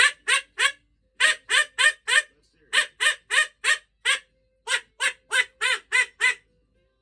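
Duck quacking, a sound effect: about eighteen short, loud quacks in four quick runs of three to six, with brief pauses between the runs.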